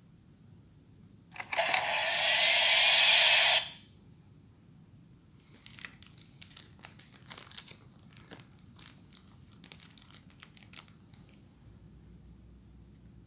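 Electronic toy transformation belt giving a loud hissing rush for about two seconds, with a faint rising whistle inside it. Scattered faint crackles and clicks follow.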